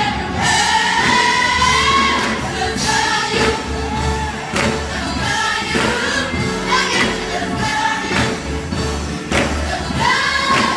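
Youth choir singing together, voices holding long notes that slide between pitches.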